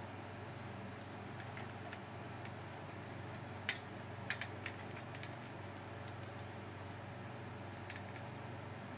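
Light clicks and ticks from hands handling wires and wire nuts in a fluorescent light fixture, with a few sharper clicks around the middle, over a steady low hum.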